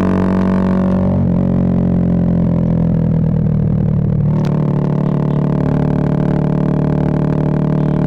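Bajaj Pulsar 220F single-cylinder engine running through an aftermarket Race Concepts full exhaust while riding, a steady droning exhaust note. About a second in the note goes softer and duller, and at about four and a half seconds it turns fuller and brighter again.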